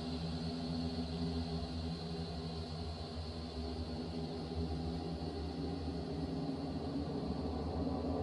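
Steady low rumbling drone with a faint high hum above it, swelling slightly toward the end.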